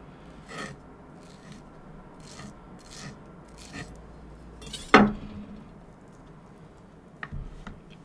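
Soft wet eating sounds of a person biting and chewing ripe mango, in short strokes about once a second. About five seconds in, a single sharp clink of dishware, the loudest sound.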